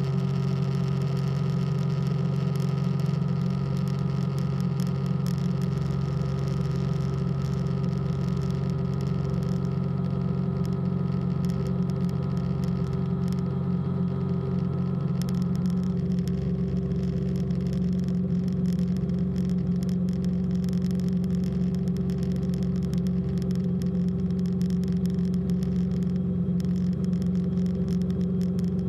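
Light aircraft engine running steadily at power, a constant low drone. Its tone shifts slightly about two-thirds of the way through.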